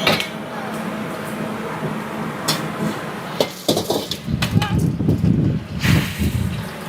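Scattered clinks and knocks of cooking utensils over a steady low background rumble, with a denser run of knocking about four to six seconds in.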